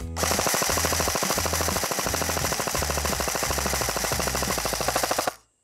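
Krytac Kriss Vector electric airsoft gun, fitted with a box-shaped tracer suppressor, firing one long full-auto burst of about five seconds as a fast, even rattle of shots. The burst cuts off suddenly near the end.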